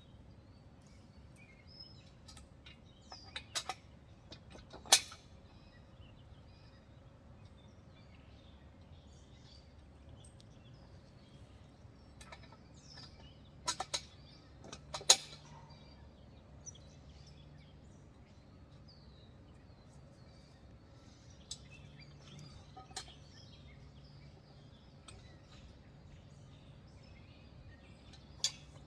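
A few sharp metal clinks and knocks from trampoline frame parts and bolts being handled and fitted, the loudest about five seconds in and again about fifteen seconds in. Birds chirp faintly in the background.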